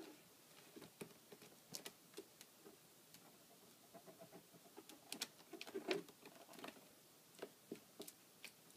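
Faint, irregular clicks and soft scuffs of a ferret's claws on a clear plastic tub and on damp cloth as it climbs in, with a quicker flurry a little past the middle.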